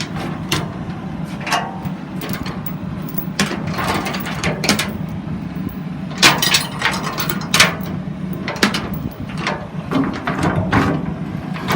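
Irregular knocks, clicks and clanks as a latch or gate on a dump truck's bed is worked open by hand, over a steady low hum. The knocks come thickest a little past the middle.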